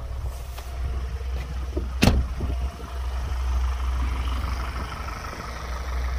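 A van door shuts with one sharp bang about two seconds in, over a steady low rumble.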